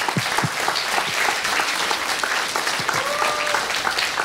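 Audience applauding, with many hands clapping steadily.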